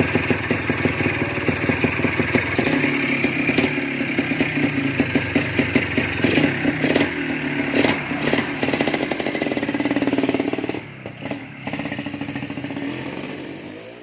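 Yamaha DT250's single-cylinder two-stroke engine running, its throttle blipped repeatedly so the revs rise and fall. About eleven seconds in it drops to a lower, quieter running, then fades out near the end.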